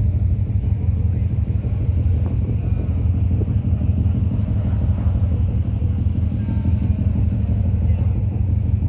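Steady low rumble of a ferry under way, its engines droning.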